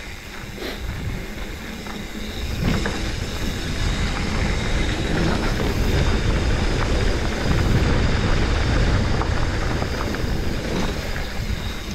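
Mountain bike rolling fast down a loose dirt trail: wind rumbles on the rider's camera microphone over tyre noise on dirt and gravel, with scattered clicks and rattles from the bike. It grows louder about two and a half seconds in and eases near the end.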